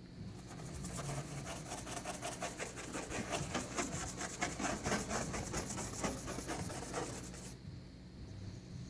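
Baking soda and water paste being rubbed by hand over a scuff on car paint, in quick back-and-forth scrubbing strokes, several a second; the strokes stop about seven and a half seconds in.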